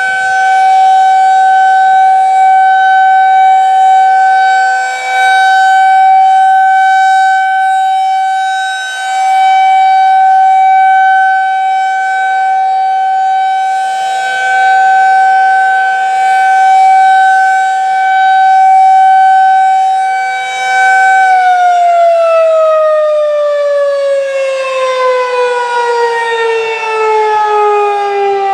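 Federal Signal 2001-SRN rotating outdoor warning siren sounding its steady alert tone of about 762 Hz, the sound swelling and fading as the rotating horn turns. About 21 seconds in, the alert ends and the siren winds down, its pitch falling steadily.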